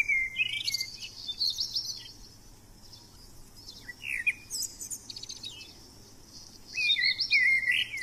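Small songbirds chirping and singing in short high phrases: a run of calls at the start, a few brief chirps around four to five seconds in, and another run near the end, with a quieter stretch between.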